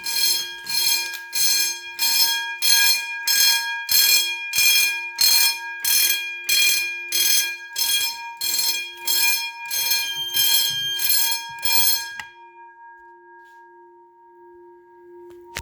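Electric fire alarm bell pulsed by a march-time encoder, ringing in short, evenly spaced bursts on and off at a steady march rhythm set to 90 beats per minute. The pulsing cuts off about twelve seconds in, leaving a faint steady tone.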